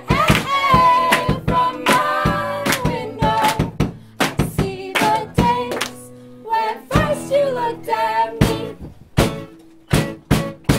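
Live band playing: guitar with a melody line over it and frequent sharp percussive hits. It goes quieter about nine seconds in, then the hits pick up again.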